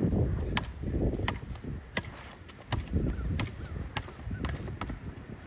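A basketball being dribbled on a hard court, a sharp bounce roughly every 0.7 seconds, over bursts of low rumbling noise.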